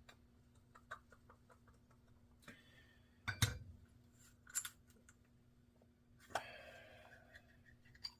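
Small clicks and knocks of a plastic spincast fishing reel being taken apart with a screwdriver. There are two sharper knocks in the middle, then a knock followed by a short squeaky scrape of plastic parts.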